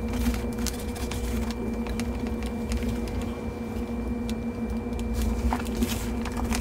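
Gloved hands turning and breaking up worm-bin bedding of compost, leaves and shredded newspaper, giving soft rustling with many small scattered crackles. Under it runs a steady hum.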